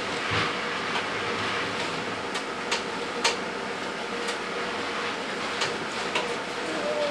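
A steady background hum with a faint constant tone, broken by scattered light clicks and knocks.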